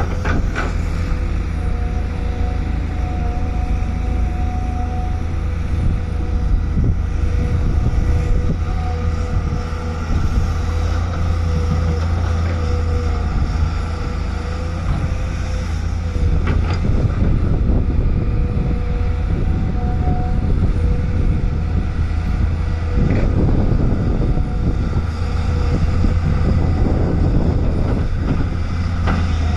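Volvo excavator's diesel engine running steadily with a deep hum and a faint whine, with a few short knocks along the way.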